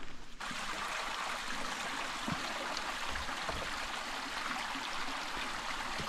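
A forest stream running: a steady rush of flowing water that starts abruptly about half a second in.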